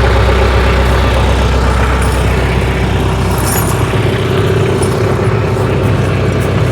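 Tractor engine idling steadily, with a brief metallic rattle about three and a half seconds in as the tire chain is pulled over the tire.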